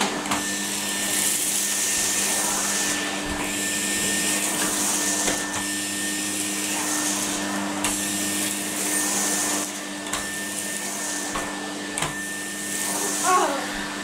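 Numatic cylinder vacuum cleaner running with a steady motor hum while its floor tool is pushed back and forth over carpet, so the suction hiss swells and fades every couple of seconds.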